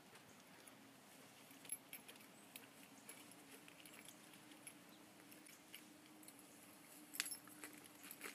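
Near silence: a faint steady hum with scattered soft ticks and rustles, and a brief louder cluster of clicks about seven seconds in.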